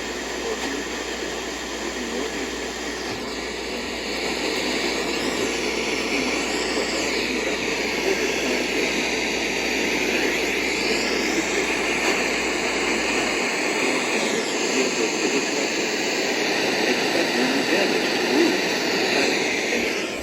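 Loud, steady static hiss from a weather-radio receiver with poor reception, drowning out the warning broadcast. A few faint whistles glide up and down in pitch through the hiss, and it cuts off abruptly at the end.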